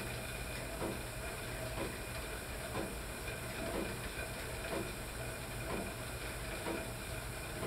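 Friction-braked cycle ergometer being pedalled at a steady cadence: a continuous hiss of the flywheel and brake belt, with a soft swish about once a second.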